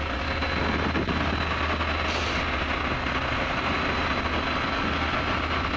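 Pioneer 300's Rotax flat-four engine running steadily, heard inside the cockpit with airflow noise; the left carburettor's main jet is blocked, which costs it cylinders 2 and 4.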